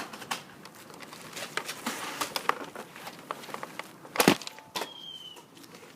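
Scattered small clicks and rustling, with one loud, sharp crack about four seconds in, followed by a brief thin high tone.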